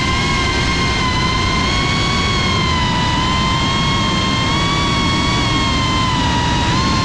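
FPV racing drone's brushless motors and propellers whining at a steady high pitch that wavers slightly with throttle, over a rough rushing noise.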